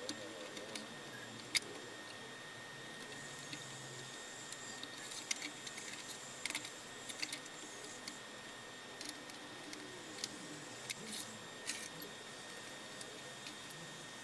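Scattered small clicks, taps and rattles of hands and a screwdriver working on an inverter's metal chassis and circuit boards as it is taken apart, the sharpest click about a second and a half in. A faint steady high tone sits underneath.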